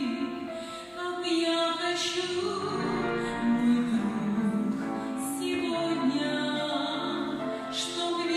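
A woman singing a slow song in long held notes, with short breaths or consonants between phrases.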